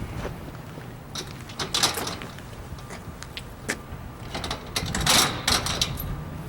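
A padlock being unlocked and taken off a storage unit's door latch: a series of sharp metallic clicks and short rattles, the loudest clatter about five seconds in.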